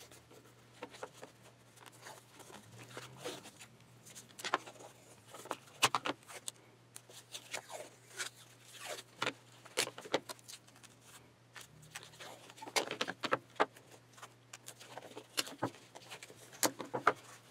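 2-inch blue painter's tape being pulled off the roll and pressed around a stack of boards: repeated short crackly rips in irregular bursts with brief pauses between them.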